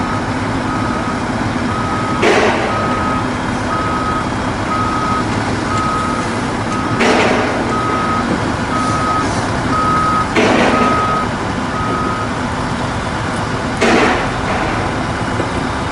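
Heavy truck's reversing alarm beeping steadily, about one beep every three-quarters of a second, and stopping about twelve seconds in, over a diesel truck engine running. Four short, loud bursts of hiss cut in at intervals.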